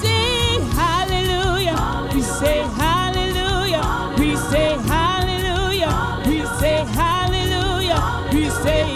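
A woman singing a gospel worship song into a microphone, in held phrases about a second long with vibrato and pitch slides. Behind her is sustained instrumental backing with a steady beat.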